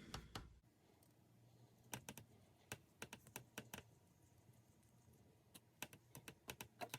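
Faint, scattered small clicks of hands and tools working on a micro RC crawler's drivetrain as the drive shaft is undone, a few quick clicks in a row around the middle and a cluster near the end.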